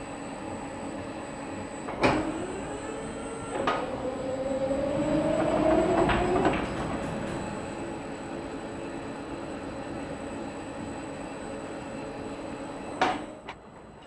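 Large industrial robot arm moving a snow plough blade: its drive motors whine, rising steadily in pitch for a couple of seconds before stopping, over a steady machine hum. A few sharp clunks come near the start, during the move and near the end.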